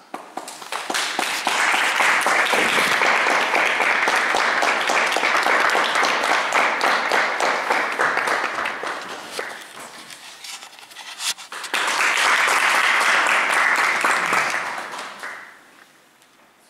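Audience applauding: a long round of about nine seconds, a short lull, then a second round of about four seconds that fades out.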